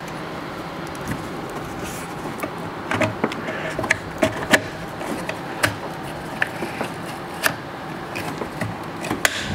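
Irregular sharp clicks and taps of small metal and plastic parts and tools, as a compressor mounting bracket and its bolts are worked into place by hand, over a steady background hiss.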